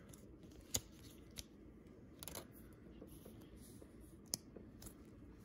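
Quiet handling of a Pokémon trading card: a few light, sharp clicks, the clearest one just under a second in and another about four seconds in, with soft rustling between.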